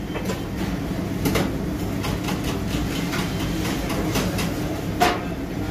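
Commercial kitchen background noise: a steady machine hum and rumble, with scattered light clicks and clatter and a sharper knock about five seconds in.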